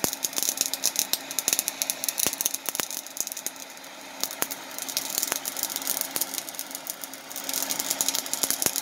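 Propane torch flame hissing against a green chile pepper, the skin crackling and popping rapidly as it blisters and chars. The crackling eases briefly about midway, then picks up again.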